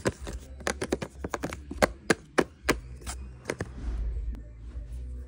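Cardboard gift box with a plastic window being handled, with a quick, irregular run of sharp taps and clicks that stop about three and a half seconds in.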